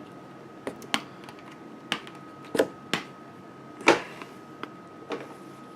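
Irregular light clicks and taps from small plastic gear being handled, about eight in all, the loudest about four seconds in, over a faint steady high-pitched tone.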